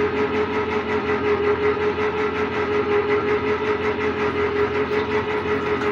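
Electric can opener running, its motor whirring steadily with a regular pulse as it turns and cuts open a tin can.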